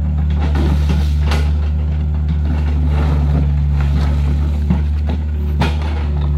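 Heavy diesel engine running steadily at a constant low hum, with a few short knocks over the top.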